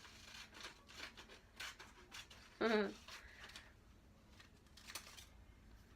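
Scissors snipping paper and paper slips rustling, a scatter of short snips and handling sounds. About two and a half seconds in, a brief hummed vocal sound.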